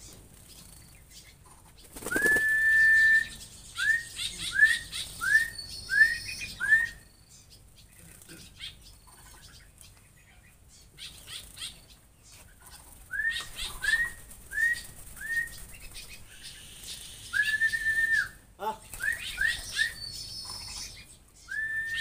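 Stilts calling: a held yelping call of about a second, then a run of five short clipped calls about two-thirds of a second apart. A second bout in the second half repeats the pattern, with a few quicker calls and a last one near the end.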